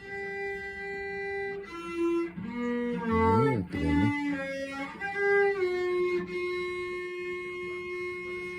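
Cello bowed unevenly, with a held note, then a run of short notes sliding up and down about two to four seconds in, and one long steady note from about five and a half seconds on.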